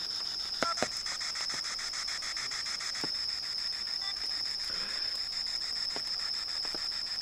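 Handheld spirit box (ITC Research Device) sweeping through radio frequencies, giving a faint static hiss broken by quick, evenly spaced ticks, with a few sharper clicks, two close together about a second in. A steady high insect trill runs over it.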